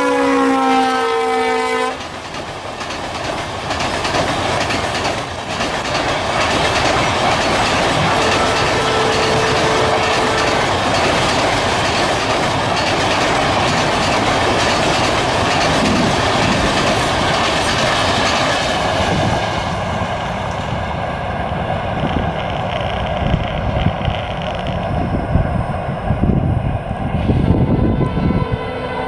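A WDP 4D diesel locomotive's multi-tone horn sounds and drops in pitch as it passes, cutting off about two seconds in. It is followed by the long steady rush of an LHB-coached express train rolling past at speed, with a clickety-clack of wheels over rail joints. In the last third the sound loses its hiss and turns to uneven low rumbling.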